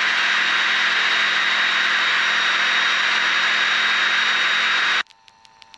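Bushcat light sport aircraft's engine and propeller at climb power, a steady drone with hiss. About five seconds in it cuts off abruptly to near quiet with a few faint clicks.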